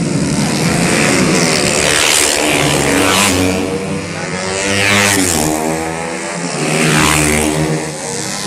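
Racing motorcycles going by one after another through a corner, engines revving hard. Each bike swells and then drops in pitch as it passes, several times over.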